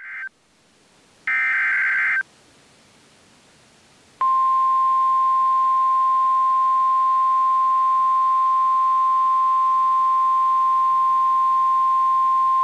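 NOAA Weather Radio emergency alert: the end of the SAME digital header, heard as two short buzzy data bursts, the first very brief. About four seconds in comes the steady 1050 Hz warning alarm tone, one loud high tone held for about nine seconds, which signals that a warning message follows.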